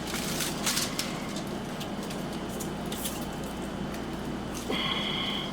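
Silicone self-fusing tape being stretched and wrapped around a plastic drain pipe: soft rustling, rubbing and light handling clicks over a steady low hum. Near the end there is a brief steady high squeak.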